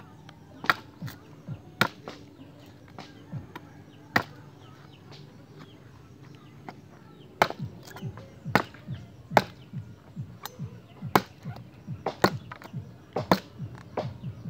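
Bolo knife chopping a wooden pole for firewood, sharp blade-on-wood strikes. A few scattered chops come first, then a steady run of about one to two chops a second from about halfway through.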